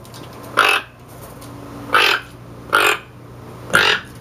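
Toco toucan croaking its alert call: four short croaks about a second apart, the warning it gives the flock when it senses danger.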